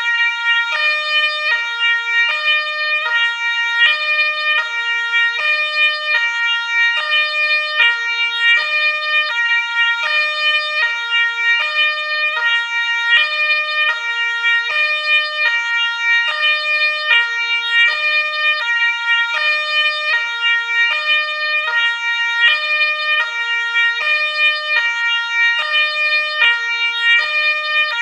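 Ambulance siren sounding continuously, a two-tone siren stepping evenly back and forth between a low and a high note.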